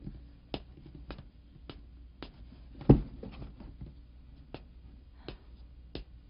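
Footsteps on a hard floor, a short knock about every half second, with one heavier thump about three seconds in as a cardboard box is set down.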